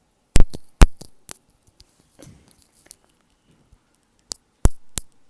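Cola-flavoured popping candy crackling close to the microphone: a handful of sharp, irregular pops and snaps, bunched in the first second or so and again near the end.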